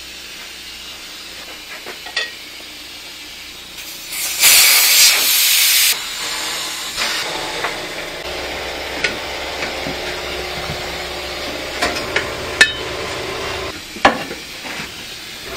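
Tire work on a manual tire changer: scattered metal clinks and knocks of tools on the rim and machine. About four seconds in comes a loud hiss of escaping air, lasting nearly two seconds and trailing off fainter.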